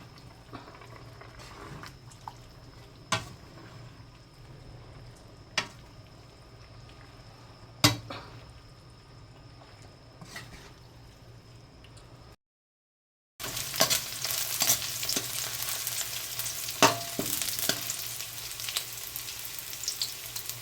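Several sharp, separate knocks over a low hum. After a short break, food sizzles loudly in a hot pan while being stirred, with quick utensil clicks and scrapes.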